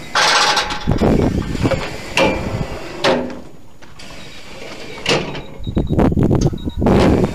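Farmquip Stockman Auto D3 air-operated steel cattle crush working: gates sliding and clanging shut, with short hisses of air as the pneumatic rams move, and heavy knocks of cattle against the steel.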